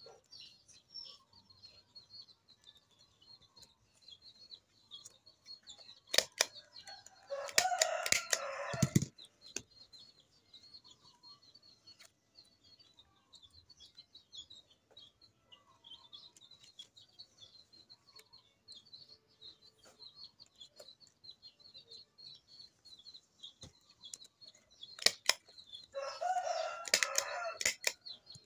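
A handheld office stapler clicking shut through folded banana leaves, with the stiff leaves rustling as they are handled, in two spells: about six seconds in and again near the end. Faint bird twittering goes on throughout.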